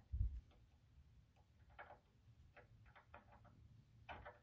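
Faint metallic clicks and taps as the small ball-seat cup is handled and fitted into the end of a 1957 Chevy drag link, with a low thump just after the start.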